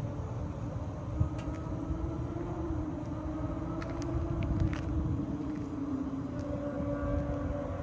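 Ford Crown Victoria Police Interceptor's 4.6-litre V8 idling steadily, a low rumble with a faint pitched hum. A few light clicks sound over it about a second in and again around four to five seconds in.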